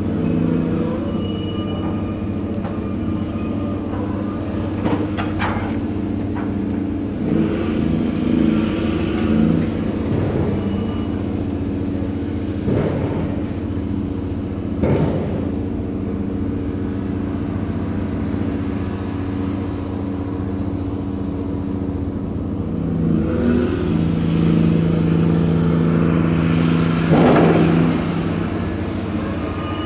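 Ship's grab-crane machinery and engine running steadily during cargo unloading, with a few louder rushing or clattering surges at intervals, the last and loudest near the end.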